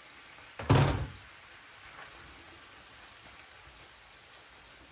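A pan of sausage-and-onion risotto sauce sizzling softly with a little water just added. A brief loud knock or splash about a second in.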